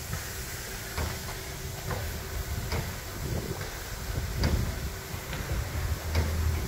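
Harz narrow-gauge steam locomotive 99 7237-3 (HSB class 99.23–24) standing and steaming: hiss of escaping steam around its cylinders over a low rumble, with a few sharp knocks at irregular intervals.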